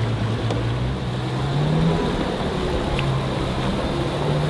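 Boat motor running under way with the hull moving through water; its pitch rises a little between one and two seconds in, eases off, then rises again near the end.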